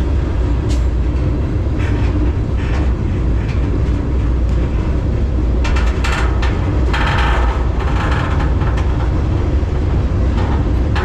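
Union Pacific freight train rumbling along, heard from aboard a moving car, with a heavy steady low rumble. Brief harsher rattles and screeches come now and then, the strongest about seven to nine seconds in.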